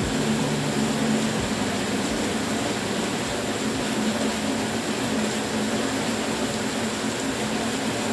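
Steady hiss-like noise, with the last low notes of background music dying away about a second and a half in.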